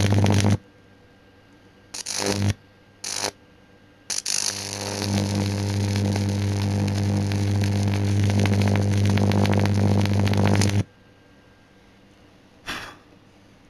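Microwave oven transformers powered up under load, giving a loud deep mains hum with a dense crackle of high-voltage arcing at the workpiece. It is switched on in a few short bursts, then runs for about six seconds before cutting off suddenly, with one more brief burst near the end.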